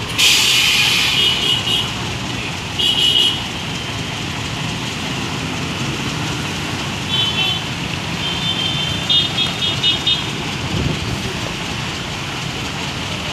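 Traffic noise on a flooded road, with a steady wash of water and engines. A loud hiss comes at the start, and short high horn toots sound about three seconds in, then again in quick beeps between about seven and ten seconds.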